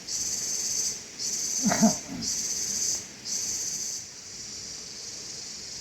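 An insect, cricket or cicada-like, shrilling in high pulses about one a second, which stop about four seconds in. A brief pitched call, the loudest sound here, cuts in near two seconds.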